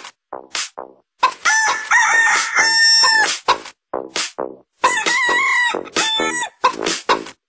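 Techno track made of chopped chicken clucks and rooster crows: short stuttering stabs, then longer held notes, cut into a dance rhythm.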